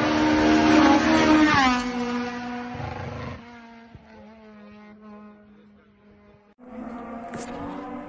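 Honda Civic race car's K20 four-cylinder engine at high revs, loudest as it passes close by, its pitch dropping just under two seconds in as it goes past, then fading as it pulls away up the road. After a sudden break near the end, the engine is heard again at a new spot.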